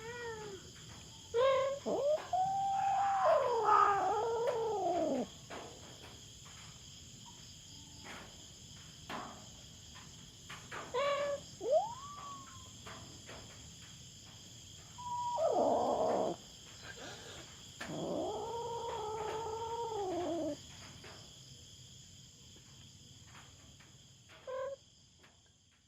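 Cat yowling: three long, wavering caterwauls that rise and fall, with several short meows between them. A steady high insect chorus runs underneath.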